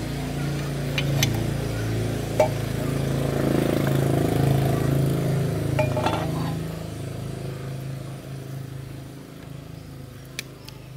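An engine humming steadily, fading away over the last few seconds, with a few sharp clinks in the first half.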